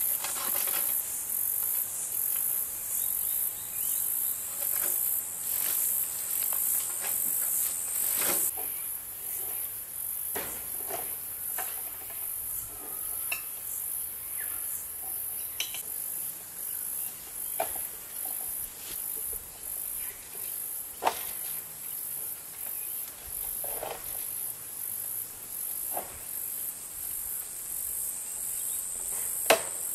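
Insects chirring in an even, high-pitched pulse, loud for the first eight seconds or so, then fainter, and building again near the end. Scattered light clicks and clinks of fence wire being handled and twisted by hand, with two sharper clicks in the second half.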